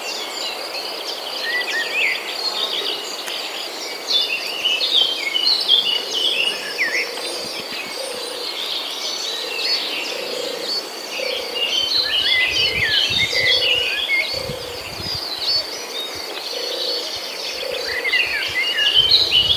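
Birds chirping and calling in quick, overlapping phrases over a steady, high-pitched insect drone.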